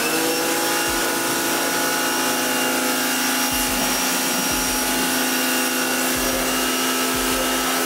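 Pressure washer running steadily, its pump motor whining under the hiss of the water jet blasting the car's underbody.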